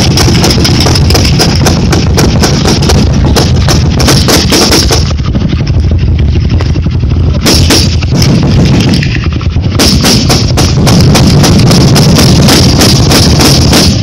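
Several machine guns firing together in a sustained barrage, their bursts overlapping into near-continuous fire. It thins out twice in the middle, then builds back to full intensity.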